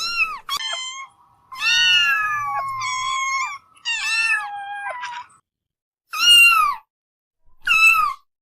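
Kittens meowing in a series of high-pitched meows. Two calls overlap in the middle, and two single meows come near the end.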